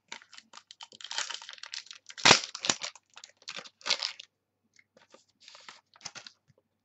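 Foil wrapper of a trading-card pack being torn open and crumpled by hand: a run of crinkling crackles, the sharpest about two seconds in, with fainter rustles near the end.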